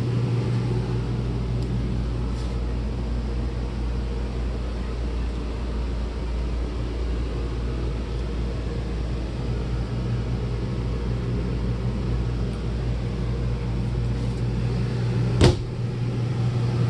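Steady low mechanical hum, with one sharp click about fifteen seconds in.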